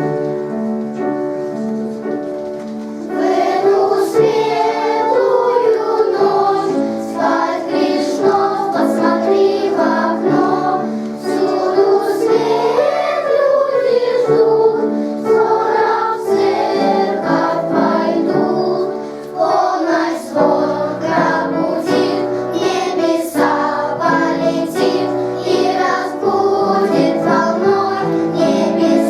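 A children's choir of first-graders singing a song in chorus. The singing is quieter for the first three seconds, then grows louder as the full choir comes in.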